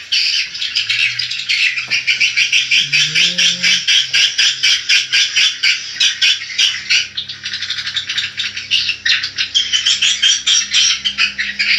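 Swiftlets calling in a dense, continuous chatter of rapid chirps and clicks.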